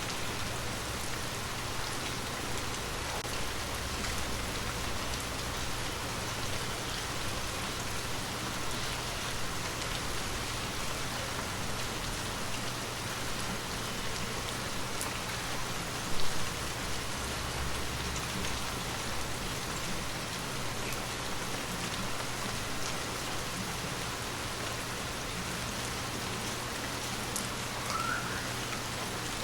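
Gentle rain falling steadily, a continuous even patter of drops on surfaces. A single brief low thump stands out about halfway through.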